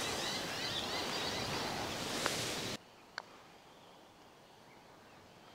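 Outdoor background of breeze and rustling with faint bird chirps, which cuts off abruptly about halfway to near silence. A single light click follows shortly after.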